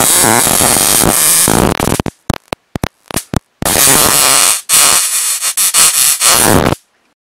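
High-voltage arc from a 1000 kV inverter buzzing against a halogen spotlight bulb. About two seconds of loud steady arcing, then a string of short zaps, then steady arcing again that cuts off suddenly near the end.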